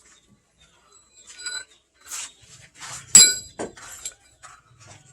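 Metal striking metal: about six irregular clinks. The loudest, about three seconds in, rings on briefly.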